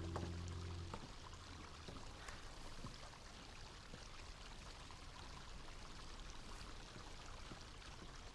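A low held chord of background music that cuts off about a second in, followed by a faint, steady hiss of room tone with a few soft ticks.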